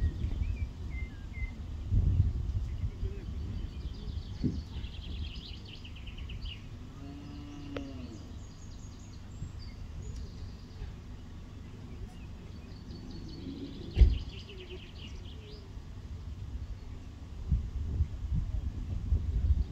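A cow mooing once, a short arched call about halfway through, over wind rumble on the microphone and small birds twittering. A single sharp knock about two-thirds of the way through is the loudest sound.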